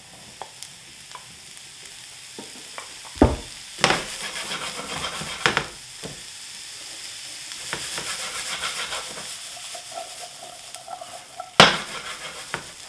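Chanterelle mushrooms frying in butter with sweated onion in a frying pan: a steady sizzle that grows stronger about four seconds in, broken by a few sharp knocks as the pan and mushrooms are stirred, with the loudest knock near the end as the pan is tossed.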